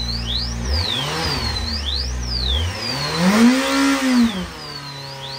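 Kawasaki motorcycle engine idling, with the throttle twisted by hand to rev it twice: a small rise and fall about a second in, then a bigger, louder rev about three seconds in that drops back to a steady idle. A high warbling alarm sweeps up and down about once a second throughout.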